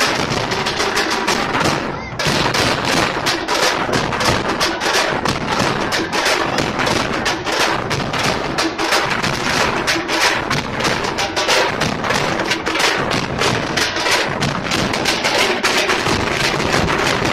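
A troupe of tamate frame drums beaten with sticks, backed by big bass drums, playing a fast, loud, dense rhythm, with a short break about two seconds in before the drumming picks up again.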